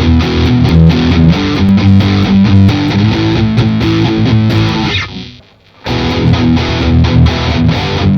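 Squier Contemporary Telecaster RH electric guitar with humbucking pickups played with distortion: fast picked notes and chords in a steady rhythm. The playing stops short about five seconds in and starts again within a second.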